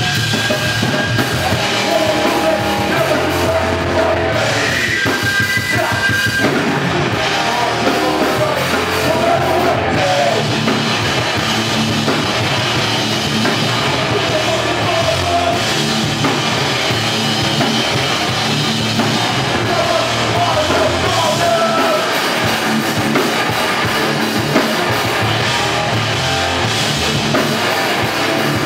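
Hardcore band playing live and loud: distorted electric guitars, bass and a drum kit, with a vocalist singing and shouting over them.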